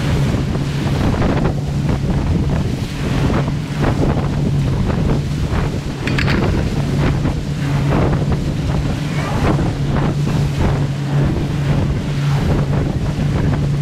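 A charter fishing boat's engine running with a steady low hum, water rushing and splashing at the hull in repeated surges, and heavy wind buffeting the microphone.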